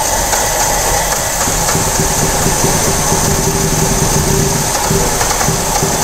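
Water-soaked Nissan four-cylinder petrol engine running roughly and unevenly, barely keeping going. It runs very poorly after being sprayed while running; a wetted sensor is suspected.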